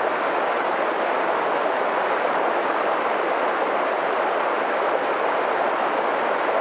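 Mountain stream rushing: a steady, unbroken rush of flowing water.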